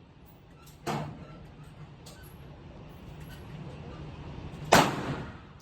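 Two sharp pistol reports from a 9mm Glock 17 Gen5, about four seconds apart, each dying away quickly. The second is much louder than the first.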